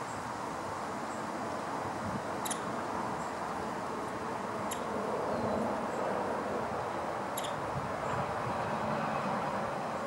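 Steady outdoor background rushing noise, with three brief, sharp, high-pitched ticks spaced a couple of seconds apart.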